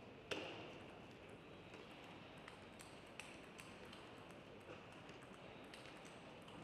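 Table tennis rally: a plastic ball clicking sharply off bats and table in a quick back-and-forth exchange, the strongest click about a third of a second in, over a faint hall background.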